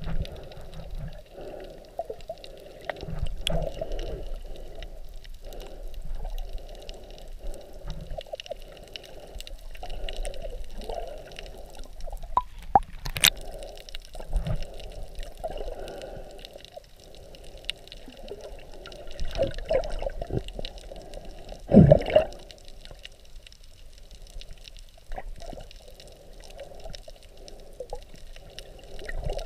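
Underwater sound picked up by a camera held below the surface: muffled, shifting sloshing and gurgling of seawater, with scattered clicks, a sharp click about 13 seconds in and a heavy low thump about 22 seconds in.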